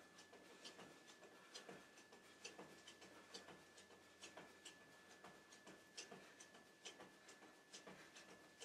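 Faint, soft taps of bare feet landing on an exercise mat during jumping jacks, in an even rhythm of about one a second. A faint steady high tone runs underneath.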